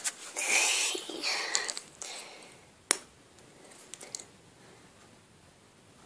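Close handling noise as hands work a lip gloss tube: rustling for about two seconds, then one sharp click just before three seconds in and a few faint ticks around four seconds.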